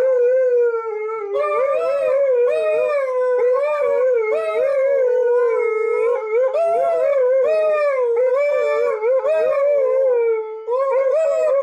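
Two Alaskan malamutes howling together, their long wavering howls overlapping almost without a break, with a brief pause near the end.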